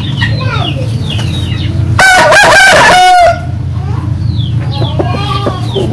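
A rooster crows once, about two seconds in, a loud call lasting a little over a second.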